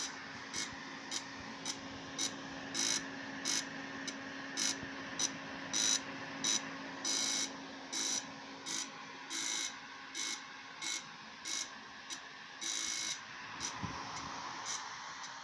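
Holley Sniper EFI running on a test bench, its injectors firing in bursts of high hissing clicks that come unevenly, with gaps and bursts of different lengths, over a steady low hum. The uneven firing is the intermittent misfire that the owner puts down to a faulty CDI unit, with the injector and the ignition both dropping out.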